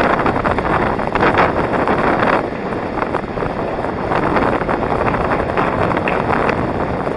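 Wind buffeting the microphone of a camera moving at skating speed, over the rolling of inline skate wheels on asphalt.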